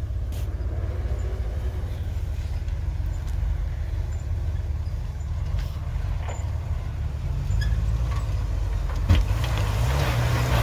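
Jeep Wrangler engine running at low speed as it crawls through snowy ruts, growing louder as it comes closer and revving up near the end. A single sharp knock about nine seconds in.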